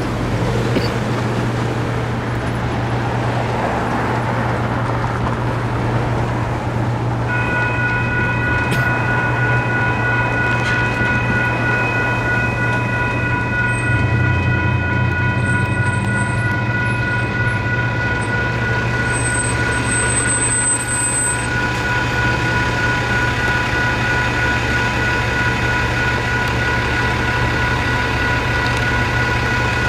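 A low diesel locomotive drone, then about seven seconds in a WCH electronic crossing bell starts ringing steadily as the railroad crossing activates, and keeps ringing throughout.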